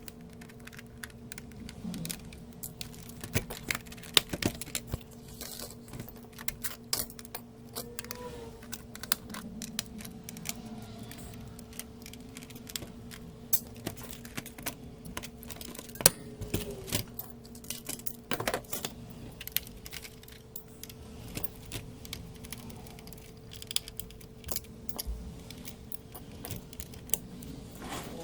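Irregular clicks, taps and light metallic clinks of a Sony PS4 console's casing and screws being handled and taken apart with hand tools, over a faint steady hum.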